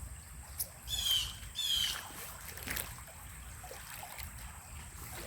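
Two short, high-pitched bird calls, about a second apart, over a faint background of running creek water.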